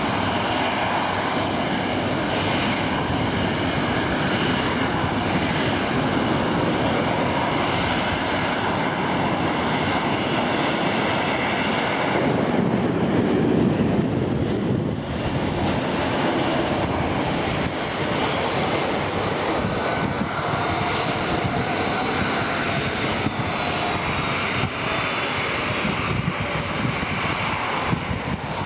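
Jet noise from a Boeing 737-800's two CFM56-7B turbofan engines on a low display pass: a steady, loud roar with a high fan whine, swelling to its loudest about halfway through. In the second half, as the airliner banks and climbs away, faint tones slowly fall in pitch.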